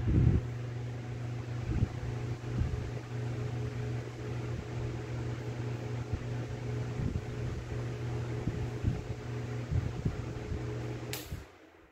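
Vintage Dominion oscillating desk fan running: a steady motor hum under the rush of the blades, with irregular low thumps. About eleven seconds in it is switched off with a sharp click, and the hum dies away within half a second.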